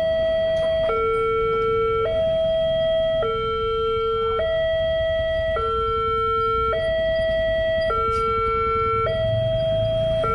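Railway level-crossing electronic alarm sounding a steady high–low two-tone warning, each tone held a little over a second: the crossing is closed for an approaching train.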